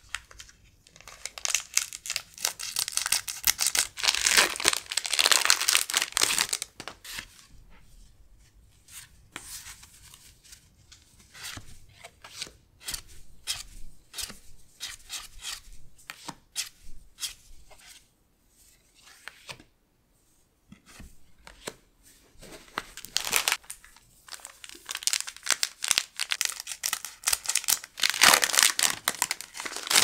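Foil Pokémon booster pack wrapper crinkling and tearing, in a long burst early on and again near the end. Between them, quieter clicks and slides of trading cards being handled one by one, with a short pause.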